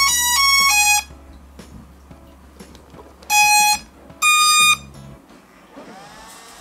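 Hubsan Zino 2 drone powering up: a quick jingle of electronic beeps stepping between pitches ends about a second in, followed by two single beeps about a second apart. Near the end a faint whirring sets in and rises in pitch.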